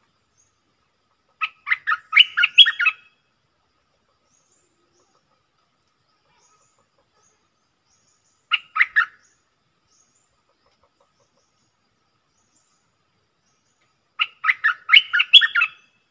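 Caged decoy bulbul singing three short phrases of quick, varied notes: one about a second and a half in, a brief one about halfway, and another near the end. It is the song a trapper's decoy gives to draw wild bulbuls to the trap.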